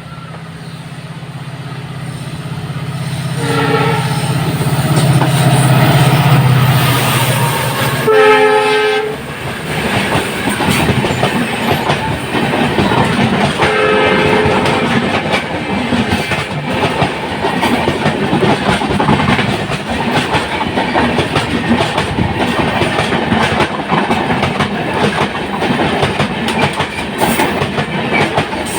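Express train locomotive approaching with a steady low drone that grows louder. It sounds its horn: briefly about three and a half seconds in, loudly around eight seconds, and again near fourteen seconds. The coaches then run past with continuous wheel clatter over the rail joints.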